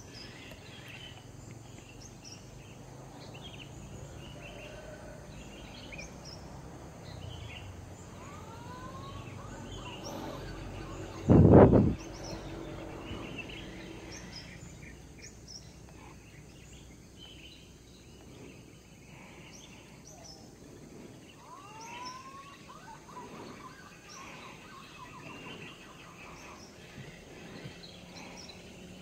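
Birds chirping and calling in the tree canopy: many short high chirps throughout, with a few whistled, curving calls around nine and twenty-two seconds in. A single loud thump cuts in about eleven and a half seconds in.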